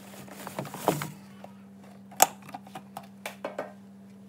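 Things being handled on refrigerator shelves: containers rustling and knocking as they are moved and taken out, with one sharp click about two seconds in and a few lighter knocks after it, over a steady low hum.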